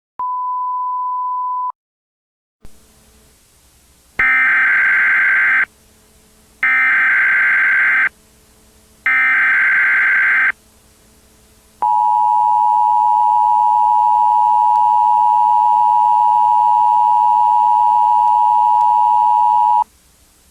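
A single steady beep of about a second and a half, then three bursts of Emergency Alert System SAME header data tones, each about a second and a half long with about a second between them, followed by the EAS two-tone attention signal held steady for about eight seconds.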